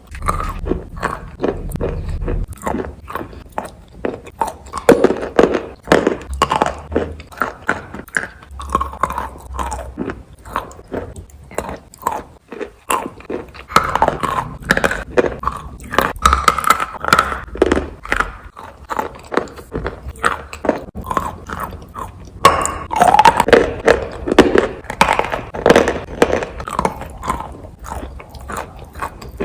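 A person biting and chewing crunchy food, a dense run of rapid crunches with wet mouth sounds.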